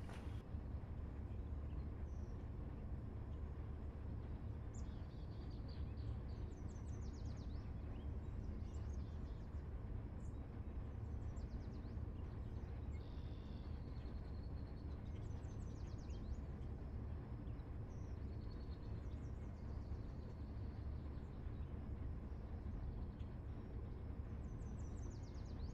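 Steady low background rumble with faint, high bird chirps and twitters scattered through it from about five seconds in.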